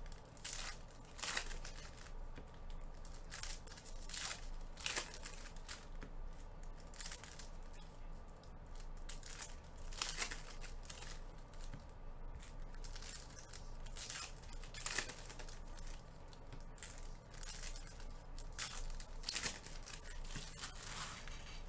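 Foil trading-card pack wrappers being torn open and crinkled by gloved hands, in irregular sharp rustling strokes with short pauses between them.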